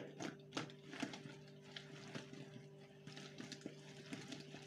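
Boiled potato chunks coated in oil and spices tossed about in a plastic bowl, giving faint, irregular soft knocks, over quiet background music with a steady held tone.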